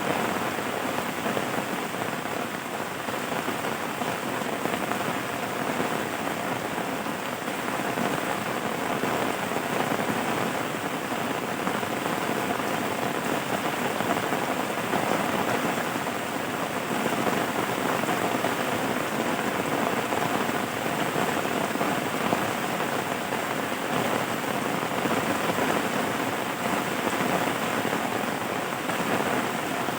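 Steady, even rain falling, a dense pattering with no thunder or other events.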